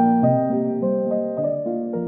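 Background piano music: a gentle sequence of single notes, each struck and left to ring, slowly getting quieter.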